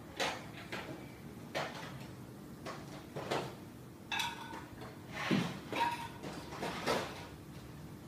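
SMC K56 industrial ceiling fan's 90-watt motor running with a steady low hum, overlaid by about nine irregular short swishing rustles close to the microphone.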